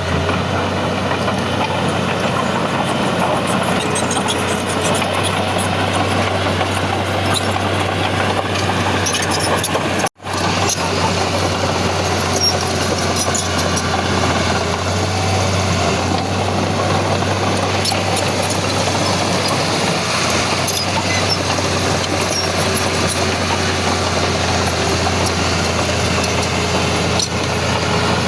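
Heavy diesel earthmoving machinery running steadily under work, a continuous engine drone. It breaks off for a split second about ten seconds in, then carries on.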